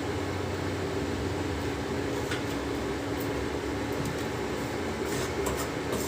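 Induction cooktop running with its steady fan-like whir as a pot of milk on it comes to the boil, with a few faint ticks from the pot.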